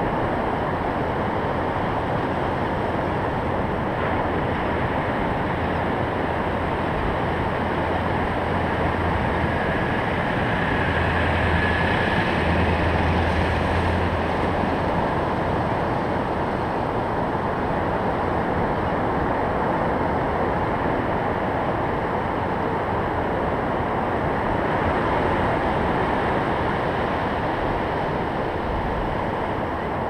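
Ocean surf breaking and washing up a sandy beach: a steady rushing noise with a deep rumble, swelling a little about halfway through and again later.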